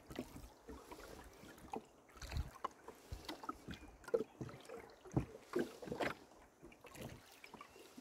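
Oars rowing a small boat: irregular short knocks and small splashes as the oars work and dip in the water, with some wind rumble on the microphone.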